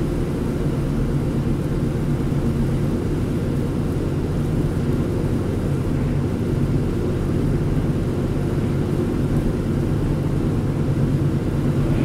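Steady low drone of a car driving at road speed, heard from inside the cabin: engine and tyres running over a partly snow-covered highway.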